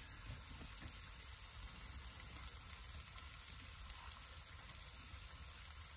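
Faint steady hiss with a few faint scattered clicks.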